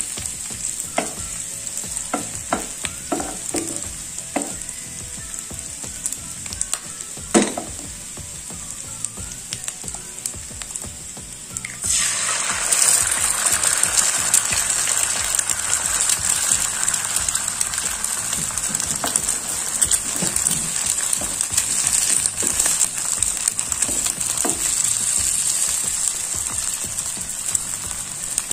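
Sliced shallots and garlic sizzling in hot oil in a non-stick pan, with a wooden spatula scraping and tapping against the pan and one sharp knock about seven seconds in. About twelve seconds in, a raw egg goes into the hot oil and the sizzle jumps much louder and stays loud.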